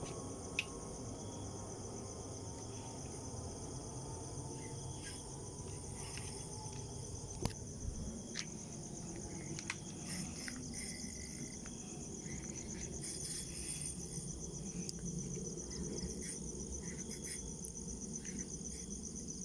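A steady chorus of night insects, crickets trilling in a continuous high-pitched pulsing drone, with a few faint clicks and knocks now and then.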